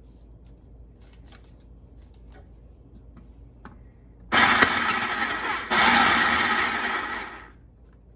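Food processor pulsed twice in quick succession, its blade chopping cold butter cubes into flour and sugar: cutting the butter in for pie dough. The motor runs in two short bursts starting about four seconds in and winds down a little before the end, after a few faint clicks of butter cubes being dropped in.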